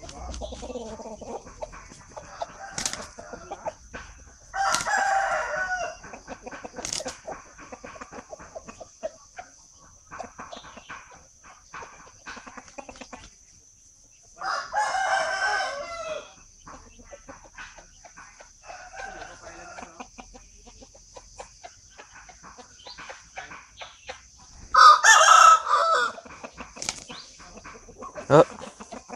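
Rooster crowing three times, each crow about a second and a half long and roughly ten seconds apart, with short faint sounds between and a steady high-pitched hiss behind.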